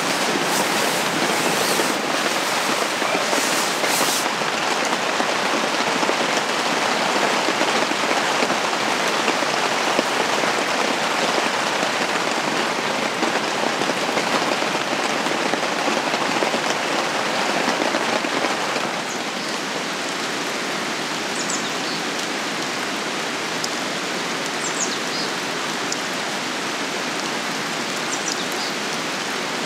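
Steady rain falling, a continuous hiss of drops that becomes a little quieter about two-thirds of the way through.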